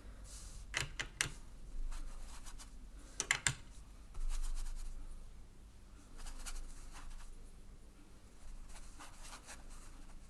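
Watercolour brush scrubbing and dabbing wet paint onto cold-pressed cotton paper, a soft scratching in several short spells, with a few light clicks in the first few seconds.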